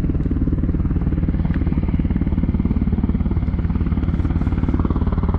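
Firefighting helicopter close by over the lake, its rotor beating in a steady, rapid chop, as it comes in to lower its hose and suck up water to refill.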